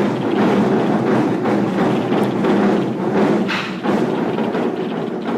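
Music with a busy percussive beat of knocks and thumps.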